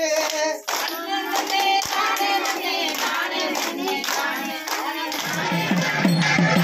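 A group of women singing a kummi folk song together, clapping their hands in time. About five seconds in, this gives way to recorded music with a steady beat.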